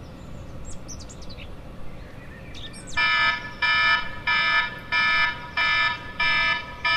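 Smartphone alarm going off about three seconds in: a loud electronic tone of several pitches, repeating in half-second pulses with short gaps. Before it, faint bird chirps.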